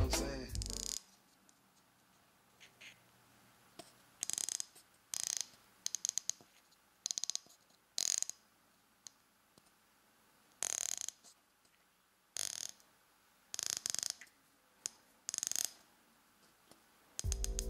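Riflescope turret being turned by hand: about ten short spells of fine clicking and rasping, each under half a second, as the turret caps are unscrewed and the elevation turret is rotated through its 1/3 MOA click detents.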